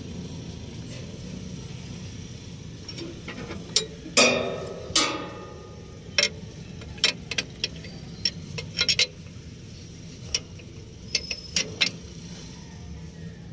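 Metal hand tools clanking and clicking on metal while the alternator and drive belt are adjusted. Two loud, ringing strikes come about four and five seconds in, followed by a scatter of lighter clicks, over a steady low hum.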